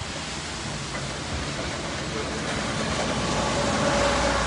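Demolition excavators working on an old mill building: engine running and material straining and tearing, a rough noisy rumble that grows steadily louder, with a steady whine joining about three seconds in.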